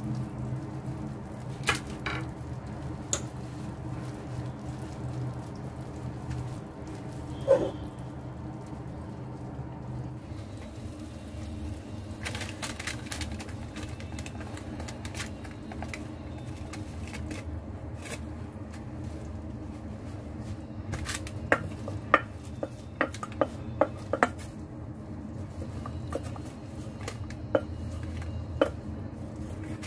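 A wooden spoon stirring and scraping thick, sticky peanut caramel in a stainless steel pot, then knocking and scraping against the pot as the brittle is pushed out. Scattered sharp knocks become frequent in the last ten seconds, over a steady low hum that stops about ten seconds in.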